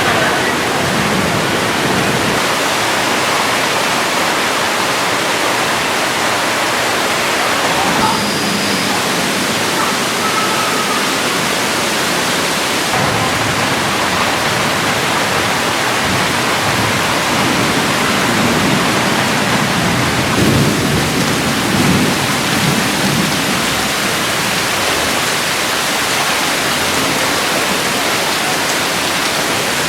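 Steady, loud rushing of water with no breaks.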